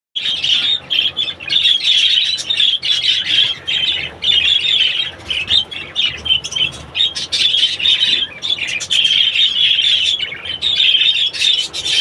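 A flock of budgerigars chattering nonstop, many birds chirping and warbling over one another.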